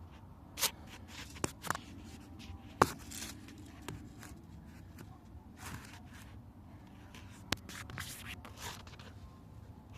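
Hands and metal tools working around the engine to get at the crankshaft position sensor: irregular scraping and rustling with a handful of sharp clicks and taps, the loudest click about three seconds in.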